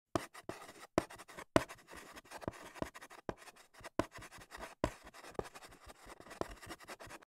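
Chalk writing on a blackboard: quick scratching strokes broken by sharp taps as the chalk meets the board, stopping suddenly at the end.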